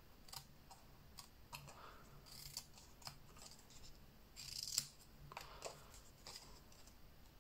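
Scissors snipping thin patterned designer paper, cutting small notches for glue tabs. A series of faint, short snips, the loudest a little before five seconds in.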